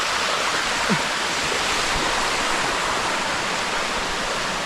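Rushing water of a waterfall cascading over rock: a steady, even hiss.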